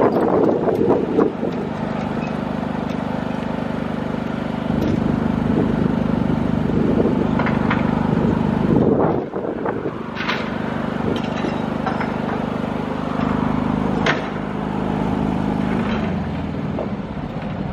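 Mobile lighting tower's generator engine running steadily with a constant hum, with a few sharp knocks and a short drop in sound about halfway through.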